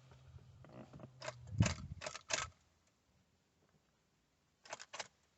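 Car keys jangling and clicking in the ignition as the key is turned, with no crank from the starter motor: the car won't crank, which the owner puts down to a failing starter. A faint low hum stops about a second and a half in.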